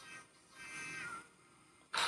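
Faint music: a few held tones about half a second in, one sliding slightly down, fading out after about a second.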